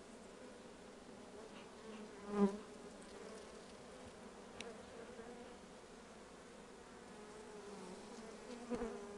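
Honeybees on an open hive frame buzzing in a steady hum. The buzz swells louder briefly about two and a half seconds in and again near the end.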